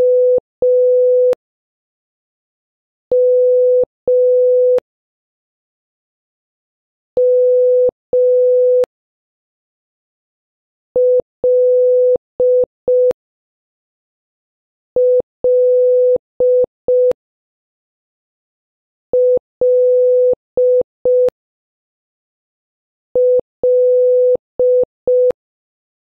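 Morse code practice tone, a single steady beep, sent slowly: the letter M (dah-dah) three times, then the letter L (di-dah-di-dit) four times, with about two seconds of silence between letters.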